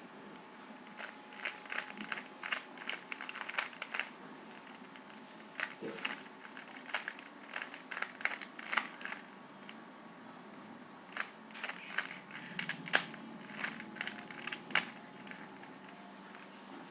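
Plastic Rubik's Cube layers clicking as they are turned quickly by hand, in three runs of rapid clicks with short pauses between.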